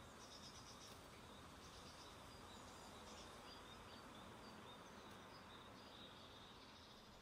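Near silence: quiet room tone with faint, high-pitched chirps and short trills in the background.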